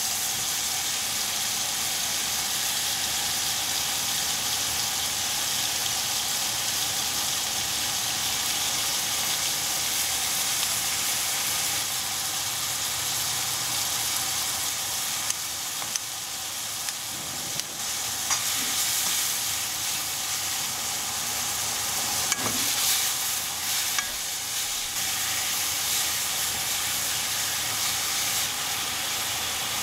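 Thin-sliced pork belly with leek and kimchi sizzling steadily as it fries in a nonstick pan. A few sharp clicks and scrapes from kitchen scissors and a wooden spoon stirring come about halfway through.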